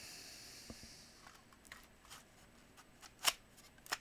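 Light clicks and scrapes of hard plastic as the opened housing parts of a Black & Decker DustBuster hand vacuum are turned over in the hands, with two sharper clicks near the end.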